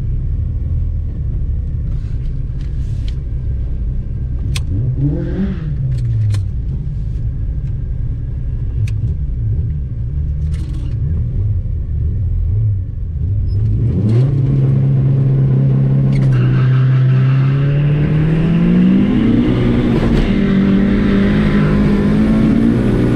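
Turbocharged 1.8T 20-valve four-cylinder of a Mk2 Golf GTI heard from inside the cabin. It rumbles at idle with one short rev blip. About 14 seconds in, the revs rise and are held steady at the launch RPM, then the car launches and the engine climbs in pitch under hard acceleration.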